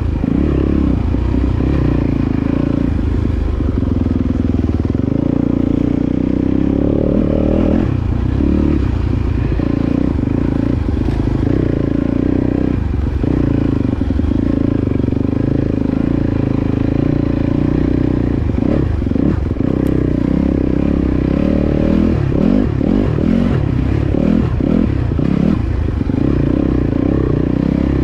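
Dirt bike engine running under way at part throttle, its note rising and falling as the throttle is worked, with several quick rises and falls near the end.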